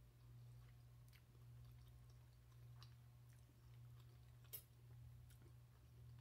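Faint chewing of a mouthful of pork chop, then a few soft clicks of a knife and fork on a glass plate, the loudest about four and a half seconds in, over a low steady hum.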